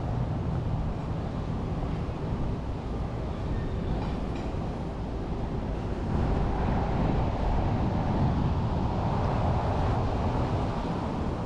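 Street traffic noise: a steady rumble of a motor vehicle, getting louder about halfway through as a heavy vehicle passes close by.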